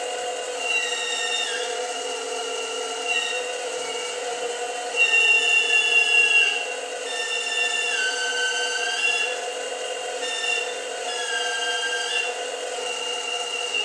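Hydraulic pump of a 1:8 scale Caterpillar 390D model excavator running with a whine. Its pitch dips and steps several times as the stick and bucket cylinders move.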